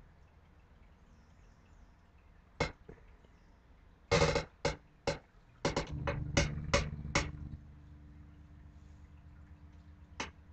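Schecter Diamond Series 004 electric bass, played quietly: a handful of sharp string strikes clustered in the middle, with low notes ringing briefly among them and one note left ringing faintly after. A single further strike comes near the end.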